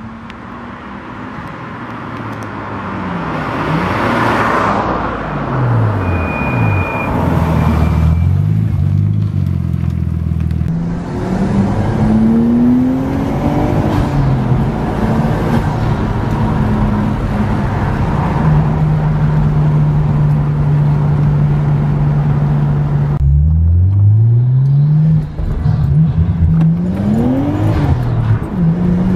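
Engine of a Nissan Skyline R33 GTS-T, a turbocharged straight-six breathing through a Nismo exhaust. First a car goes past, its pitch falling away, then the engine is heard from inside the cabin pulling hard through the gears. The pitch climbs and drops at each shift, holds steady for a few seconds, then falls and climbs again as it accelerates once more.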